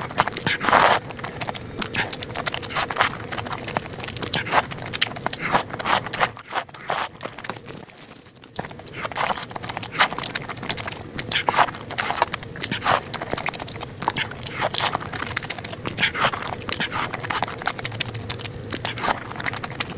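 A person eating noodles close to the microphone: chewing and wet mouth sounds in quick, irregular smacks, easing off briefly about seven seconds in.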